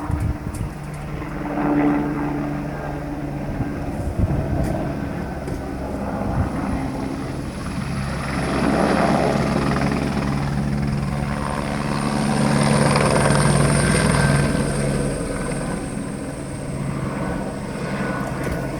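Helicopter rotor and engine running, a steady low drone with rapid rotor chop, growing louder about halfway through and easing off near the end.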